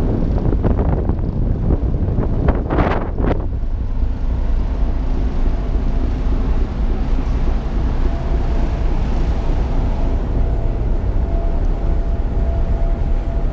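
Steady low rumble of the Raja car ferry's engines under way. Wind gusts buffet the microphone for the first three seconds or so, then die away, leaving the even engine rumble with a faint thin hum.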